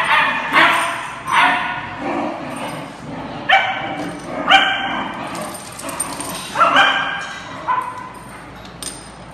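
Taiwan dogs barking and yipping in play: a string of high, drawn-out yips about once a second, petering out after about eight seconds.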